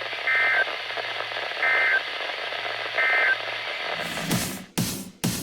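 NOAA Weather Radio end-of-message data bursts: three short two-tone digital bursts about 1.3 s apart over radio hiss, signalling the end of the severe thunderstorm warning broadcast. About four seconds in, the radio audio breaks off in choppy cuts into electronic music.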